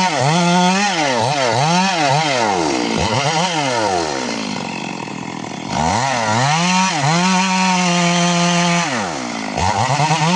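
Chainsaw cutting wood, the engine revving high and easing off again and again so its note dips and climbs back up. In the middle it drops to a lower, rougher note for a couple of seconds, then holds a steady high whine before more dips near the end.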